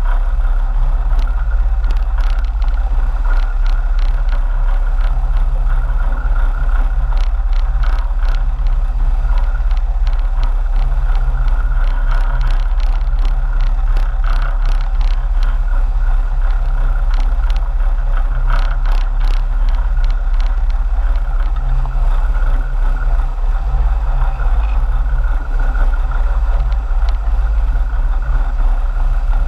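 Sport-fishing boat's inboard engines running steadily under way, a loud constant low drone with the rush of wind and the boat's wake over it.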